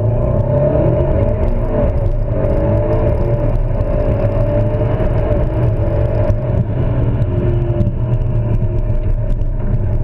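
Twin-turbocharged Mercedes-Benz SLS AMG V8 running with a heavy low rumble, its engine note slowly rising and falling without a clear gear change.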